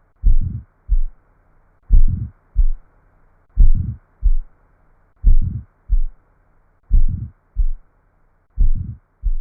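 Heart sounds of aortic stenosis heard through a stethoscope: an ejection systolic murmur. Each beat is a first heart sound running into a longer murmur ("lub, hush") and then a short second heart sound ("dub"). The pattern repeats about every 1.6 seconds, six beats in all.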